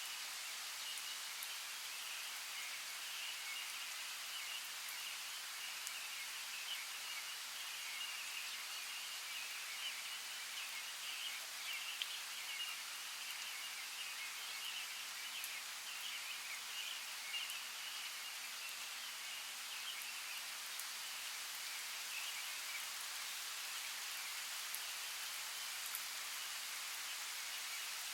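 Rainforest ambience: a steady hiss of rain, with scattered sharp drop ticks and a high, flickering chatter running through it.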